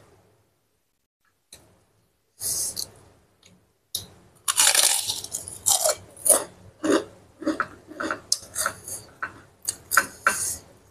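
Krupuk crackers crunching close to the microphone. A few short crackles come first, then a long loud crackle at about four and a half seconds, then a quick run of crisp crunches, about two to three a second.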